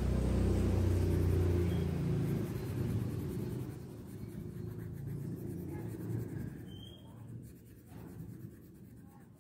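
Colouring a workbook page by hand, the colour rubbed back and forth on the paper in a quiet scratching. A low steady hum fills the first two seconds or so and then fades out.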